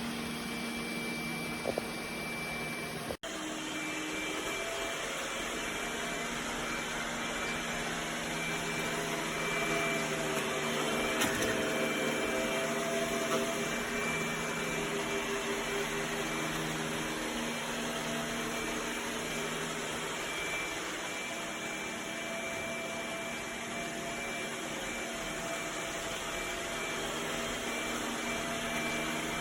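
iRobot Roomba j7+ robot vacuum running: a steady motor and brush hum with several steady tones in it, broken by a sharp cut about three seconds in.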